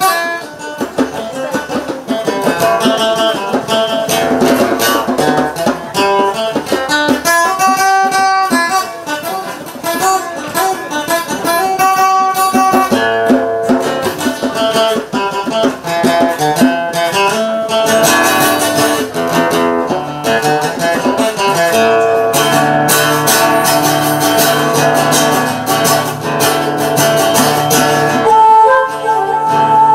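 Acoustic guitar playing an instrumental tune over djembe hand drumming. A long held note comes in near the end.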